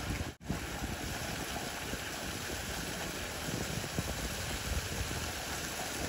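Steady hiss of rain falling on leaves, with low wind rumble on the microphone; the sound drops out briefly about half a second in.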